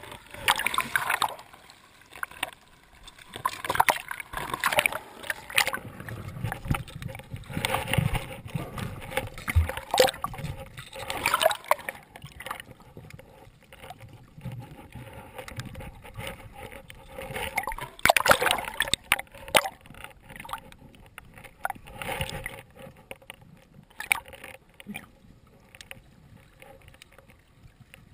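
Seawater sloshing, splashing and gurgling around a camera held at the waterline and under the surface, in irregular bursts every second or two, quieter near the end.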